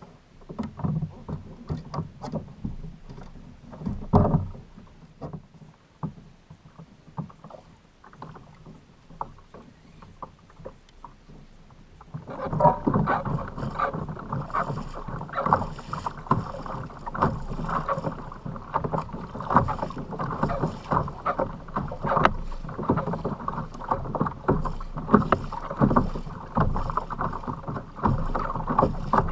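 A kayak on choppy water: water slapping and sloshing against the hull, with irregular knocks and bumps, heard muffled. It is sparse at first with one loud thump about four seconds in, then becomes a continuous, louder slosh from about twelve seconds on.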